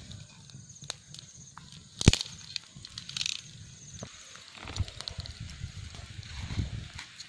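Small dry-twig fire crackling with scattered clicks and one sharp snap about two seconds in, over a low rumble.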